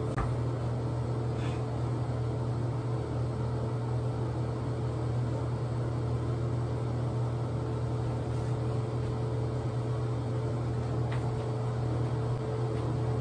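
Steady hum and whir of a ventilation fan, even and unchanging, with a few faint ticks.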